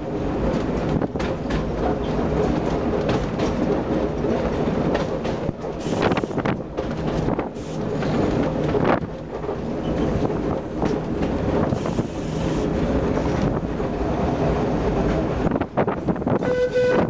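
Sóller electric tram running along its track: steady rumble with wheels clattering and knocking over the rails. A short horn note sounds near the end.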